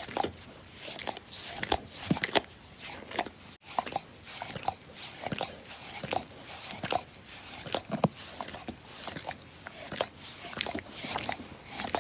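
A dog licking: quick, irregular licks and tongue smacks, a few a second, with a very brief break about three and a half seconds in.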